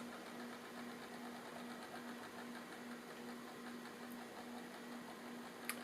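Faint steady whir of a BMW E30 instrument cluster's speedometer and odometer gear train running on the bench, with a low steady hum under it and a small click near the end.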